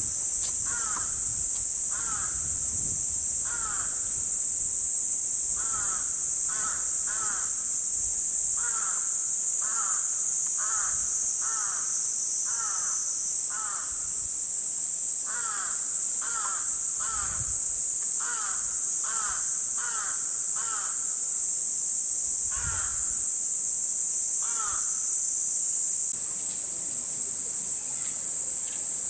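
A crow cawing over and over in irregular runs, about twenty caws, falling silent a few seconds before the end. Behind it runs a loud, steady, high-pitched drone of summer cicadas.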